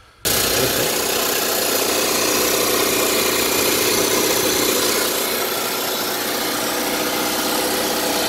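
Suzuki SJ410's F10A one-litre four-cylinder engine idling steadily, turning the new home-made double crankshaft pulley, which the owner finds runs smooth with no vibration.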